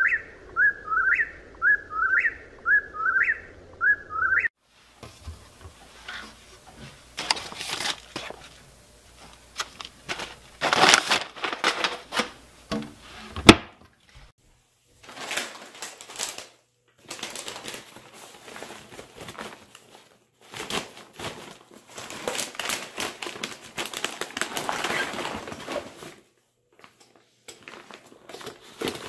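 A whip-poor-will calling its repeated whistled song, about once a second, for the first four seconds. Then gear is handled and packed: rustling, bumps and clatter, with one sharp click about halfway through.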